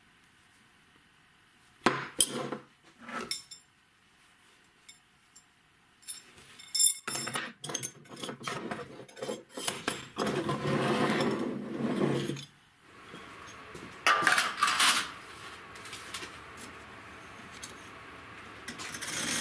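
Pieces of steel profile pipe and a homemade pipe-and-rod tool handled on a wooden workbench: scattered knocks and metallic clinks, with a few seconds of continuous scraping noise about ten seconds in.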